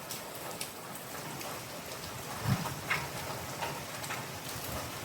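Heavy hurricane rain falling steadily, with scattered sharp drip ticks and a single low thump about halfway through.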